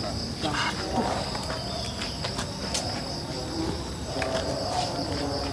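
Insects trilling in a steady, high, even chorus. Faint low voices murmur twice in the background.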